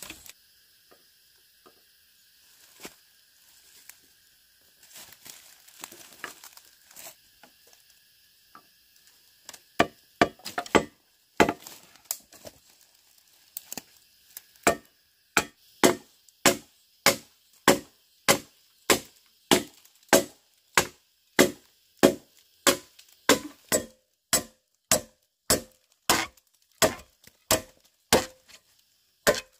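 A blade chopping on wood: a few scattered light knocks at first, a handful of hard strikes from about a third of the way in, then from about halfway a steady rhythm of about two chops a second.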